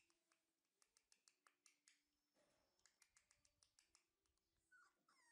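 Near silence: quiet room tone with a scattering of faint, short clicks.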